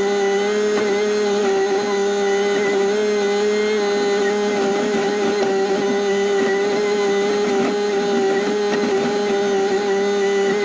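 Excavator engine and hydraulics running steadily, with a constant high whine, heard from inside the cab while the bucket digs.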